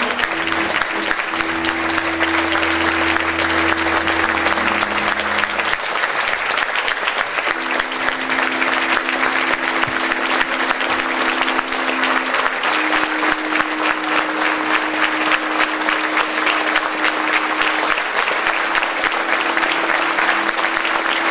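Audience applauding steadily, with slow music of long held notes underneath; the deep bass notes stop about six seconds in.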